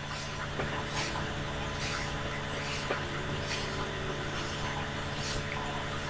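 Steady background hum and hiss picked up by the recording microphone, with short soft hissing puffs every second or so.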